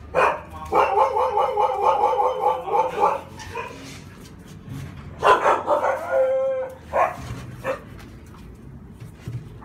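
Thai Ridgeback dogs in kennels howling and barking: a long run of wavering pitched calls, then another call about five seconds in that drops in pitch at its end, and two short barks about seven seconds in.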